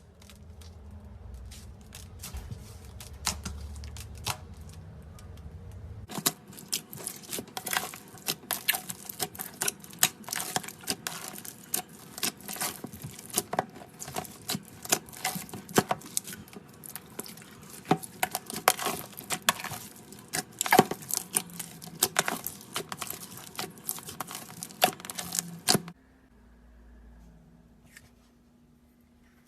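Slime being squished and kneaded by hand: a dense run of rapid, irregular sticky clicks and crackles that stops abruptly near the end.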